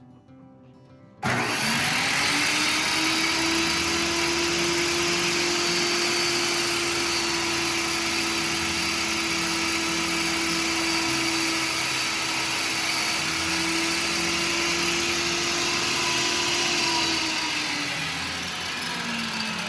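Circular saw with its blade guard removed, running and cutting at a steady pitch. It starts abruptly about a second in and winds down near the end, its pitch falling as the blade spins down. The missing guard leaves the blade spinning out in the open.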